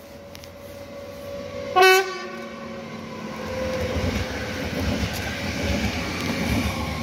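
Electric multiple unit passenger train giving one short horn toot about two seconds in, then passing close by with a rising rumble of wheels on the rails.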